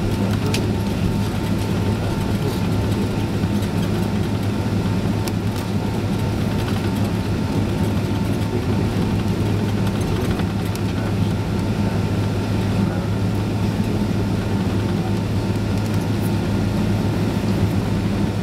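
Jet engine noise of a Boeing 767-336 with Rolls-Royce RB211 engines, heard inside the passenger cabin: a steady, even rush with a low hum and faint steady whining tones, unchanging throughout.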